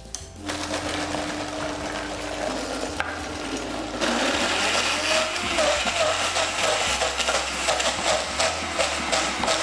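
Vitamix Professional Series 300 blender motor starting on its slowest speed about half a second in, then turned up and running louder from about four seconds in, blending a thick eggplant dip in the small 900 ml container with the tamper pushed down into it.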